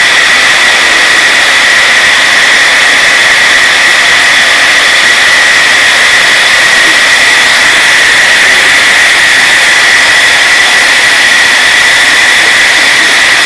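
Steady, loud rushing hiss with a high whistling tone from pressure escaping at a 5-inch gauge model steam locomotive, with no chuffing rhythm.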